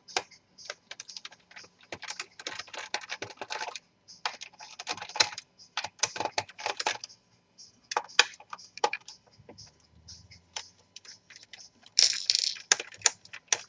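Quick small clicks and ticks of a screwdriver turning screws out of a laptop's plastic bottom case, coming in dense runs, with a louder burst of clicking near the end.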